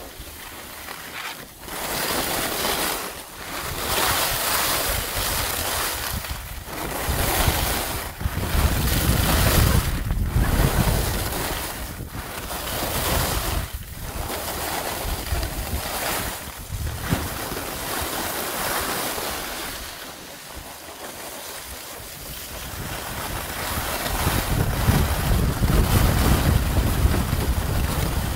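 Wind buffeting the microphone while skiing downhill, with skis hissing and scraping over packed snow. The rush swells and fades every second or two, turn by turn, with bouts of low rumble.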